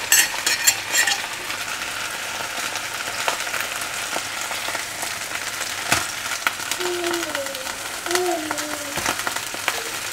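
Cabbage wedges sizzling steadily in hot olive oil in a frying pan. A few sharp clicks of metal forks against the pan come as the wedges are turned over, one near the start, a louder one about six seconds in, and another about nine seconds in.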